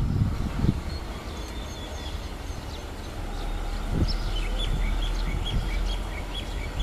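Steady low rumble of diesel railway engines idling and running, growing a little stronger after about three seconds. Over it, a small bird gives short chirps repeated two or three times a second in the second half, and there is a single knock about four seconds in.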